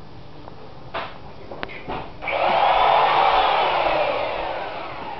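Electric drill running into the wall for about two and a half seconds, starting sharply about two seconds in and tailing off, its pitch wavering under load. A few light knocks come before it.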